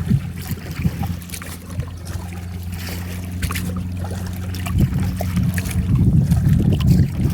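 Wind buffeting the microphone in gusts, with small water trickles and drips around a kayak.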